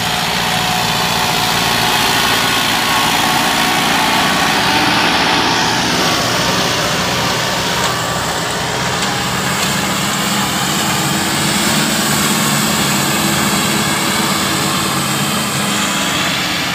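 Turbocharged diesel engine of a Powertrac Euro 60 tractor running steadily under load as it pulls a harrow through the soil.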